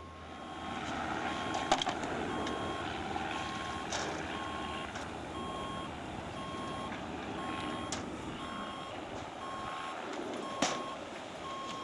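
A vehicle's reversing alarm beeping, one steady tone repeating at a regular pace, over a constant background rush, with a few sharp knocks.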